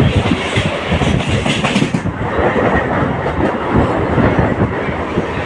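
Mumbai suburban local train running, its wheels clattering over the rail joints under a steady loud rumble; the higher hiss dulls about two seconds in.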